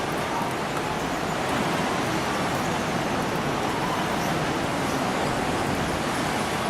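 Steady rushing outdoor noise with no distinct events standing out.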